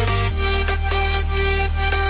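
Electronic background music: held bass notes with a melody over them; the bass note changes about a third of a second in.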